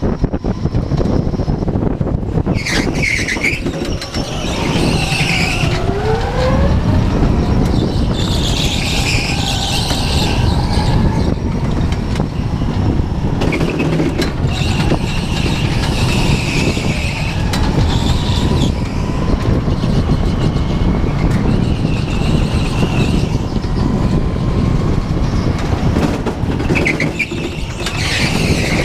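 Go-kart running at speed, recorded on board: its motor makes a steady loud drone with pitch rising and falling slightly. Tyres squeal in short bursts through the corners, about three seconds in, around nine seconds, and again near the end.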